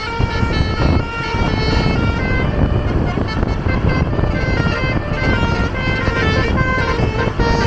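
A tour bus's basuri telolet horn playing a melody of short stepped notes, over the low rumble of engine and road noise.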